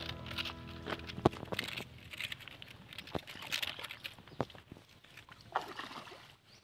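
Wading steps and small splashes in shallow muddy pond water, with a few sharp knocks, as a bamboo fishing pole is pushed into the mud. Background music fades out in the first couple of seconds.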